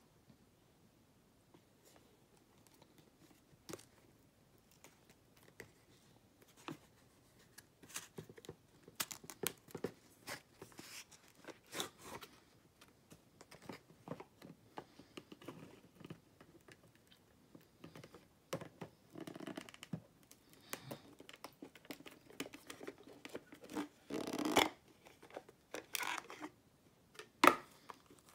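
Cardboard packaging being handled: scattered taps, scrapes and rustles as a small earbuds box is turned over, slid out of its sleeve and its lid lifted. A longer, louder scrape comes about three-quarters of the way through, and a sharp tap near the end.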